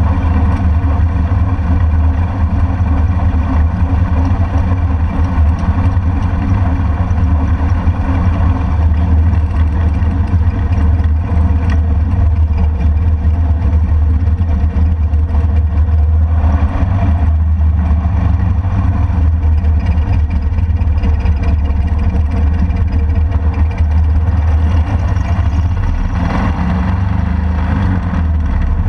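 Motorcycle engine running steadily while riding along, a continuous low drone with no pauses.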